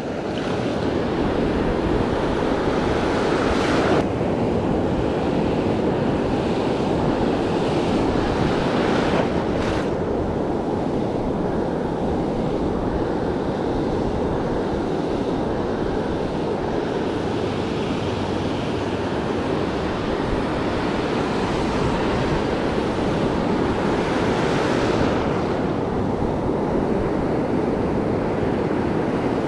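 Ocean surf washing onto a sandy beach in a steady rush, with a few louder swells as waves break, and wind buffeting the microphone.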